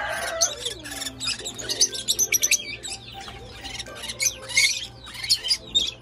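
Small pet parrots chirping and squeaking in quick, high-pitched bursts, with a rapid run of chirps partway through.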